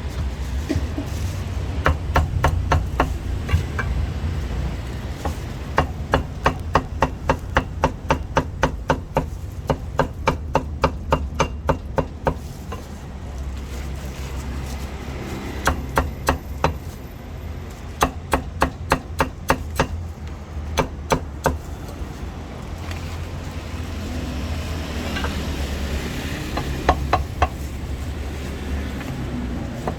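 A cleaver chopping roast meat on a chopping block in quick runs of sharp knocks, about three a second, broken by short pauses.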